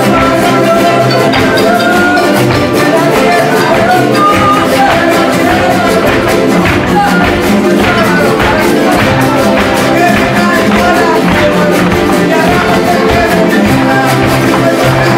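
Son jarocho music from a fandango group: many jaranas and other jarocho string instruments strummed together in a steady driving rhythm, with a melody line and voices singing over it.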